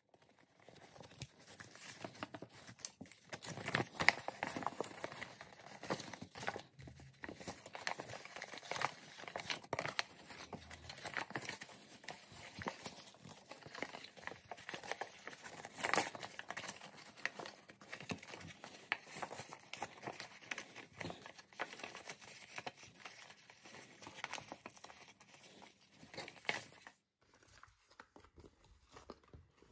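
A sheet of pre-creased origami paper crinkling and crackling as hands fold and pinch its creases, with many sharp crackles. It stops a few seconds before the end.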